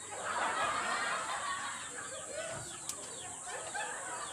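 Chickens clucking and calling in many short rising-and-falling calls, over a steady high hiss, with a single sharp click near the middle.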